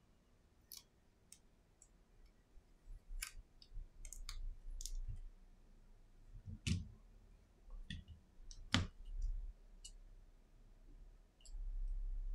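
Scattered small clicks and taps from an iPhone 11's metal frame and replacement display being handled and set down on a silicone repair mat, with a few duller knocks; the loudest knock comes near the end.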